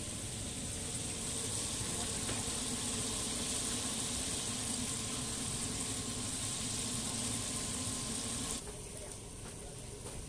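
Battered chicken deep-frying in a vat of hot oil: a steady sizzle that cuts off suddenly about eight and a half seconds in.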